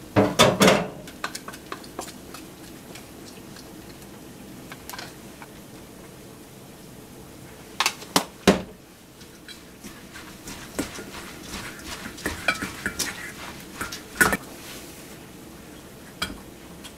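Stainless steel kitchenware clattering and clinking: a manual food chopper's parts, a metal bowl and a colander being handled and set down. A burst of clatter comes right at the start, then a pair of sharp metal knocks about eight seconds in, scattered clinks after that, and another sharp knock near the end.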